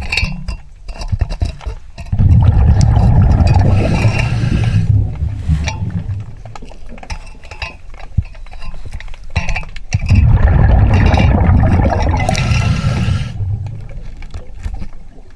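Scuba diver breathing through a regulator underwater: two long exhalations, each a rumbling, crackling rush of bubbles about three seconds long, starting about two seconds and about ten seconds in, with quieter inhalations between.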